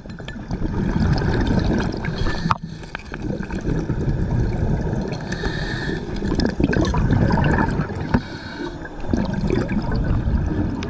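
Muffled underwater noise of water moving around the camera, a dense low rumble with scattered clicks and knocks.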